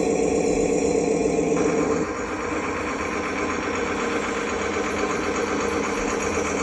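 Electric motors and plastic gearboxes of a radio-controlled construction model running steadily. The pitch shifts about two seconds in as the load or motion changes.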